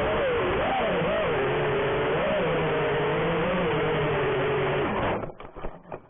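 FPV quadcopter's brushless motors and DAL Cyclone V2 propellers whining, the pitch swinging up and down as the throttle changes. The sound cuts off abruptly about five seconds in, followed by a few brief crackles.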